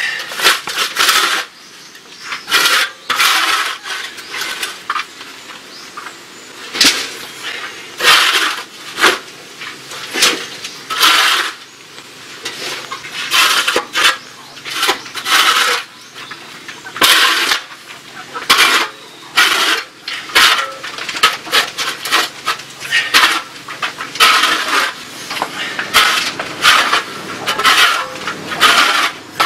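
Flat metal shovel blade scraping dried chicken droppings across a concrete floor in repeated, irregular strokes, roughly one a second.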